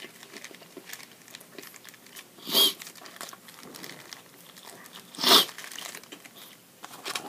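Foil and paper wrapper of a burrito crinkling as it is handled and bitten into, with two loud rustles about two and a half and five seconds in and a softer one near the end. Quiet chewing between.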